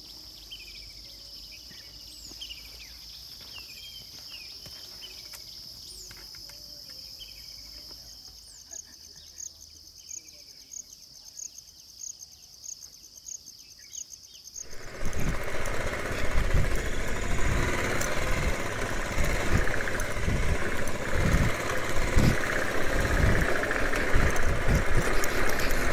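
A steady high insect drone with birds chirping over it; about a third of the way in, a regular high ticking call starts at about two a second. About 15 seconds in this cuts off abruptly to a much louder motorcycle ride: engine noise with wind buffeting the microphone.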